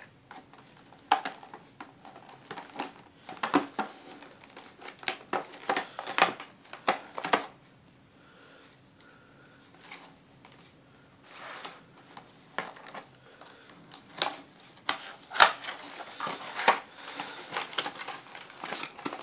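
Cardboard speaker box with a clear plastic window being handled and opened by hand: plastic crinkling and cardboard flaps scraping and tapping in scattered crackles, with a quieter few seconds about halfway through.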